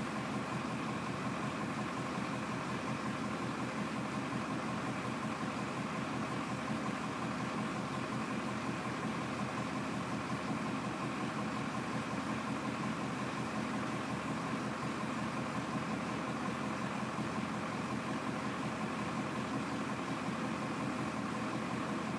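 Semi tractor's diesel engine idling steadily while the end-dump trailer's box is lowered on its hydraulic hoist.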